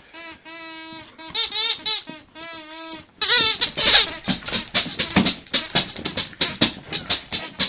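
A squeaky dog toy squeaking repeatedly as a dog chews and squeezes it, each squeak short and pitched. From about three seconds in, rapid clicking and rattling take over.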